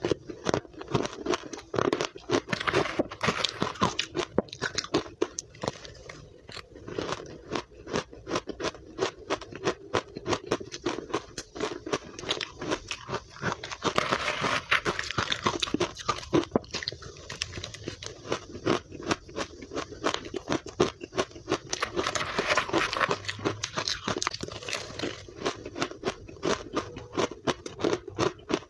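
Close-miked chewing of matcha-dusted powdery ice, a rapid, steady run of crisp crunches. About halfway through, a spoon scrapes and digs into the ice in the plastic tub.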